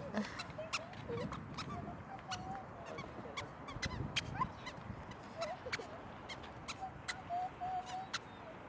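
Toddlers' small shoes stepping on wet paving: light, irregular clicks with faint short squeaks between them.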